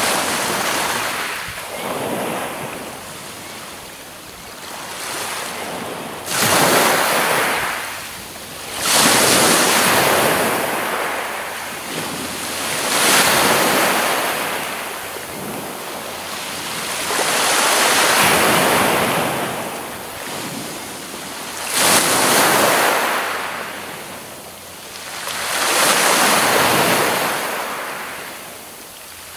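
Small sea waves lapping and breaking on a pebble beach, each wash swelling and fading every few seconds.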